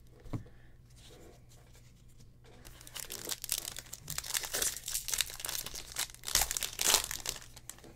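A Stadium Club trading card pack wrapper being torn open and crinkled by hand. After a light tap early on, the ripping and crackling begin about three seconds in, with the loudest tears near the end.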